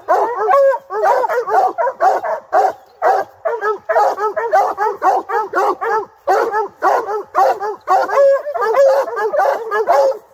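A hound barking treed at the base of a tree, which signals quarry up in the branches. It is a fast, steady string of short chop barks, about three or four a second, with brief breaks twice.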